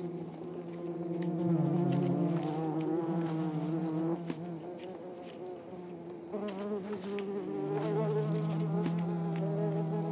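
Wasps buzzing in flight around their raided nest: a steady wing hum that wavers in pitch, with two or more insects overlapping at times. A few faint ticks are heard over it.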